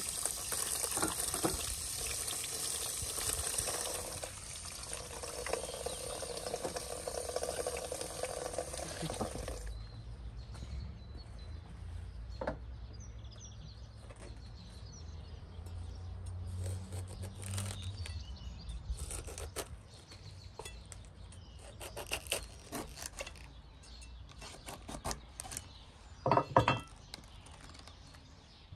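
Water flowing steadily for about the first ten seconds, then stopping abruptly. After that come scattered clinks and knocks of dishes and cooking utensils, loudest in a quick cluster near the end.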